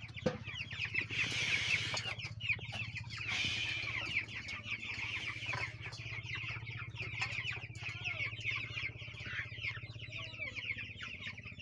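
A large flock of farm chickens calling together, a dense continuous chorus of many overlapping short high cheeps and clucks, over a steady low hum.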